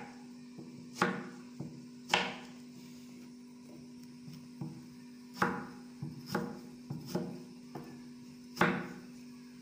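Kitchen knife chopping firm peeled taro into cubes, the blade knocking through onto a cloth on the work surface in a series of irregular strokes, about six of them loud and several lighter.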